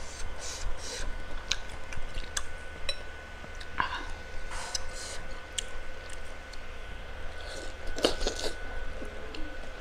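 Close-miked eating: chewing and biting meat off a beef rib bone, with many small wet mouth clicks and two louder mouth noises about four and eight seconds in.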